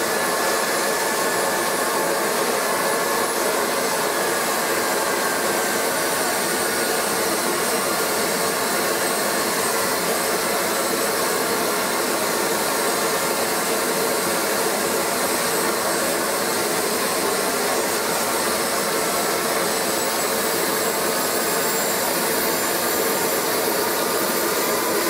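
Home-built KJ66 model gas turbine, a single-stage centrifugal-compressor jet engine, running steadily and loudly. Over the steady rush of noise a thin high whistle drifts slowly lower in pitch.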